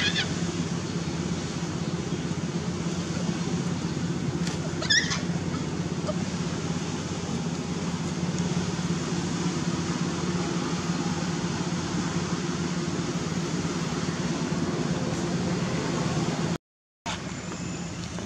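A steady low engine hum runs throughout. A macaque gives a shrill call right at the start and a brief high squeak about five seconds in. The sound drops out for a moment near the end.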